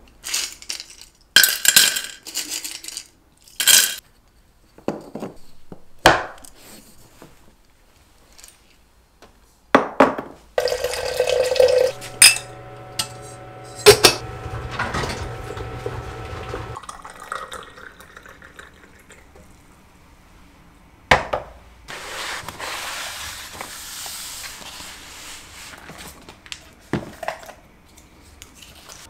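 Glass kitchenware handled on a counter: several sharp ringing clinks of a glass jar and glass teapot, then knocks. Partway through comes a short pouring rush, then a steady hum with a sharp click as the teapot's stainless lid is set on. A longer hiss and a few light knocks follow near the end.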